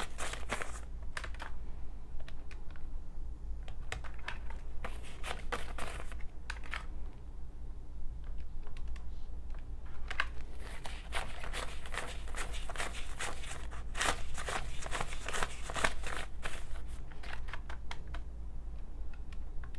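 Paper banknotes rustling and crinkling as they are flipped through and laid out, mixed with quick taps on the plastic keys of a Texas Instruments TI-30X IIS calculator. The clicks come in dense runs, busiest in the second half.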